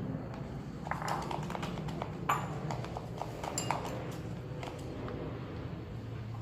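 Spoon clinking and knocking against a bowl while stirring a glue slime mixture: irregular clicks and taps, busiest in the first few seconds.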